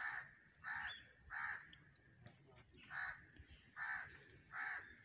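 A crow cawing, six short caws with a pause of about a second and a half midway.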